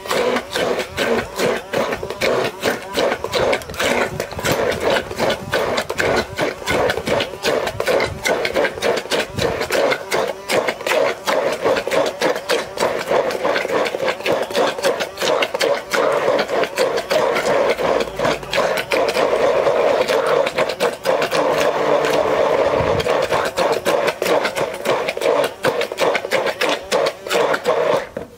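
Handheld immersion blender running in a plastic beaker, pureeing avocado with lime and cilantro: a steady motor whir with a fast, uneven churning as the blade works the mixture. It cuts off at the very end.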